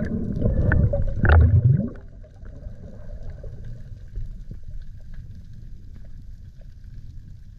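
Muffled underwater water noise picked up through a GoPro housing: a loud rush of water for about the first two seconds, then quieter steady water noise with scattered faint clicks.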